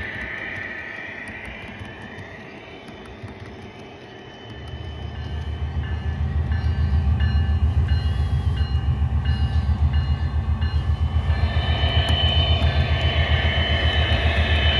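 HO-scale model train running past: an MTH SD70ACE diesel locomotive's onboard sound system playing a diesel rumble, with the hoppers' wheels rolling on the track. The low rumble comes in about four and a half seconds in, pulses about four times a second, and a higher sound joins it near the end as the locomotive draws close.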